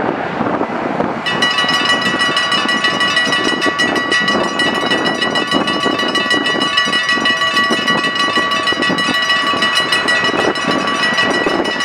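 Level-crossing warning bells start ringing about a second in, a rapid, steady ringing that keeps on as the barriers come down: the signal that a train is approaching.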